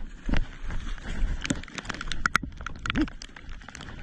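Raindrops tapping irregularly on a body-worn action camera's housing: a scatter of sharp ticks over a low wind rumble on the microphone. A brief vocal sound comes about three seconds in.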